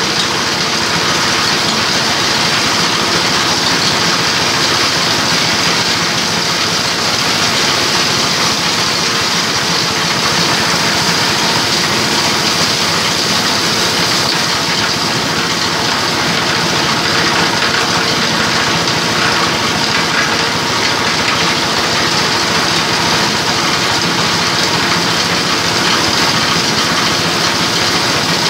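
An 8 hp diesel engine driving a multipurpose chopper/grinding mill, running steadily at a constant loud level while material is fed into the hopper to be ground into meal.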